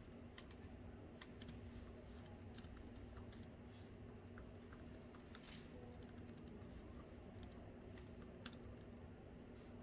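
Faint typing on a laptop keyboard: irregular, quick key clicks over a steady low room hum.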